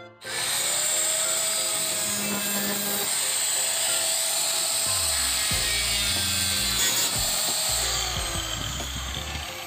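Angle grinder running against the rusted sheet-steel edge of a Bajaj RE autorickshaw body panel: a steady, loud grinding rasp with a thin motor whine. It cuts in abruptly just after the start.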